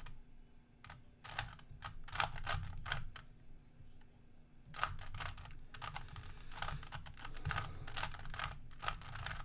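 Plastic Rubik's Cube being twisted by hand: quick runs of clicking, clacking layer turns, with a short pause of about a second near the middle.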